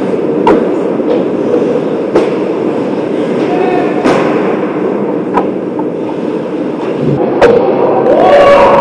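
Ice hockey play: a steady rumble of skates on the ice, broken by about five sharp clacks of sticks and puck, with shouting voices near the end.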